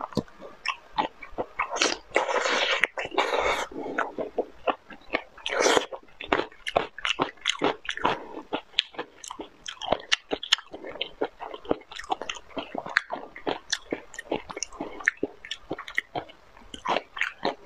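Close-up eating sounds of a chili-sauced prawn being bitten and chewed: a rapid run of wet clicks and crunches, with a few longer wet noisy stretches.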